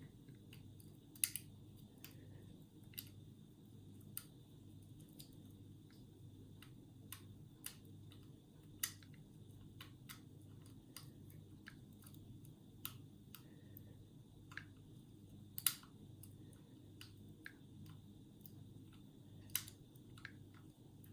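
Sparse, irregular metal clicks and ticks of homemade picks and tension wrench working the levers inside an ERA five-lever curtain-sided mortice lock, a few sharper clicks standing out among them, over a faint steady hum.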